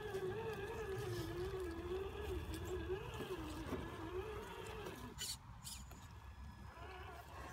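Electric motor and gearbox of a Traxxas TRX-4 RC rock crawler whining, the pitch wavering up and down as the throttle is worked on the climb. The whine stops about five seconds in, followed by two sharp clicks, and picks up again faintly near the end.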